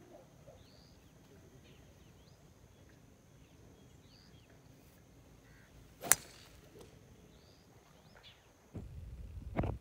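A fairway wood striking a golf ball: one sharp, loud crack about six seconds in, with birds chirping faintly. Near the end, about a second of low rustling noise that ends in a knock.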